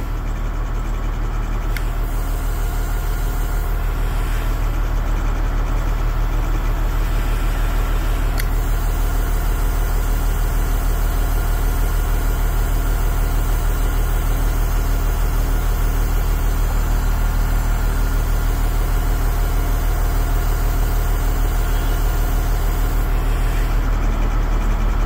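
Small crane's engine running steadily at a low idle-like hum, growing a little louder over the first few seconds, as the crane holds and lowers a stone chimney chase.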